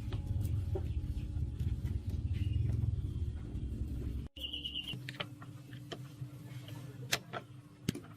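Steady low rumble of a running motor with a steady hum, cut off abruptly about four seconds in; then quieter, with a brief high tone and a few sharp clicks.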